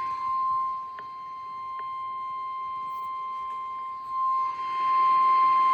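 NOAA Weather Radio 1050 Hz warning alarm tone: one steady high beep that signals a warning-level alert is about to be read. It dips in level through the middle and comes back up near the end.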